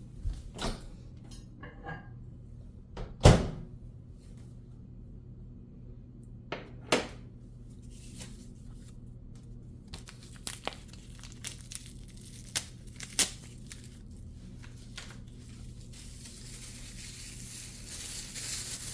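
Kitchen handling noises during food preparation: scattered knocks and clicks, the loudest about three seconds in, with a cluster of sharper taps later and a faint hiss building near the end.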